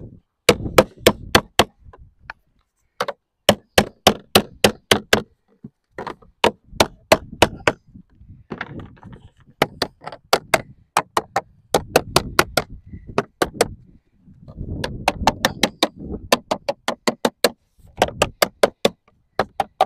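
Lead sheet being dressed in with a lead dresser: repeated sharp strikes on the lead, in quick runs of several blows at about four a second with short pauses between runs.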